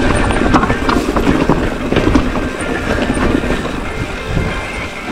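Hardtail mountain bike rattling down a dry dirt singletrack: tyres rolling over dirt with a low rumble, and rapid irregular clicks and clatter from the chain and frame over the bumps.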